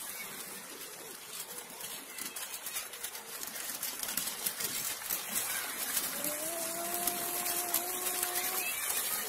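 Small children's tricycle rolling over brick paving: its plastic wheels rattle and click steadily over the joints between the paving bricks. Near the end a steady held tone sounds for about two and a half seconds.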